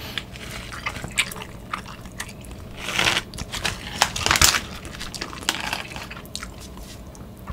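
A plastic instant-ramen packet crinkling as it is handled, loudest in two crackling spells about three and four and a half seconds in, with small scattered clicks between.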